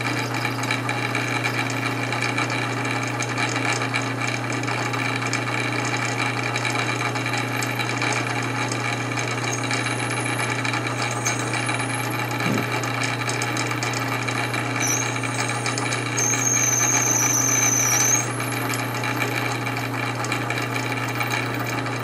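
Metal lathe running steadily while a twist drill in the tailstock bores into a spinning pot-metal carburetor part. Partway through, a high squeal from the bit cutting comes in and grows louder for a couple of seconds before dropping away.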